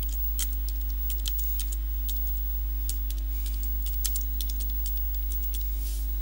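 Computer keyboard typing: irregularly spaced key clicks as a short phrase is typed, over a steady low hum.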